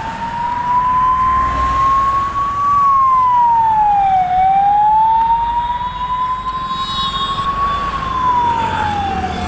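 Ambulance siren wailing: a slow rise of about three seconds, then a quicker drop, heard twice, over the low rumble of road traffic.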